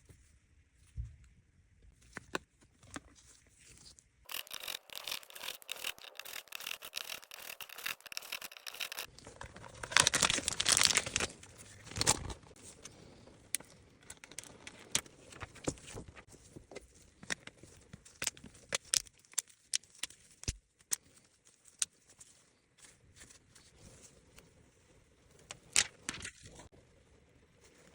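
Handling noises of a phone screen repair: scraping and rubbing with many short clicks and taps, and a louder hissing stretch about ten seconds in.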